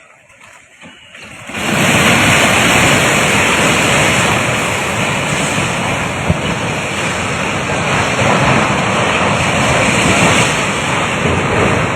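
Swollen Swat River floodwater rushing in a loud, steady roar that starts abruptly about a second and a half in.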